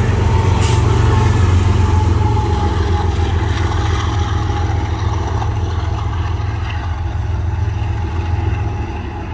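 Steady low rumble of a passing freight train and its diesel locomotives, with a faint thin tone that sinks slightly in pitch; the rumble slowly fades toward the end.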